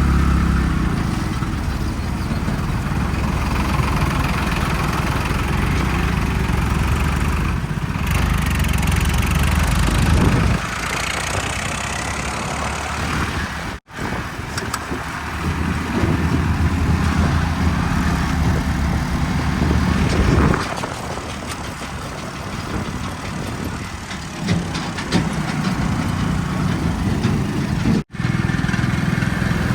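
Heavy diesel engines of tractors and a backhoe running and labouring under load. The sound breaks off abruptly twice, about 14 and 28 seconds in, and changes in character after each break.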